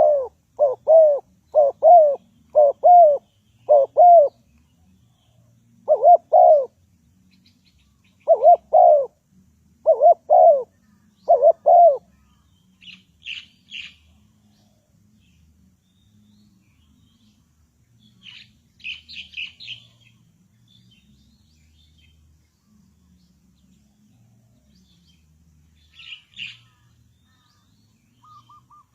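Spotted dove cooing: a run of short, repeated coos over the first dozen seconds. After that, brief high chirps from small birds come in three short bouts.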